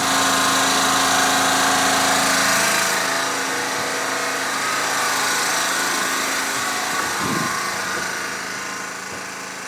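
Predator 3500/4000 portable petrol generator running steadily with an even engine hum. It grows gradually fainter in the second half.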